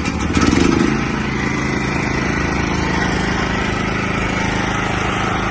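Petrol portable generator engine just after starting, surging louder for about half a second and then settling into a steady run.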